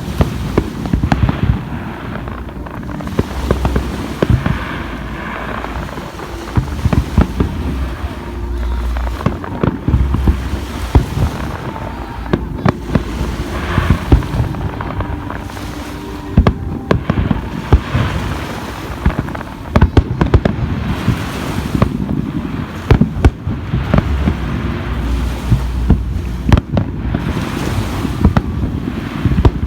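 Aerial fireworks going off in rapid, overlapping succession: many sharp cracks and deep booms, with no let-up.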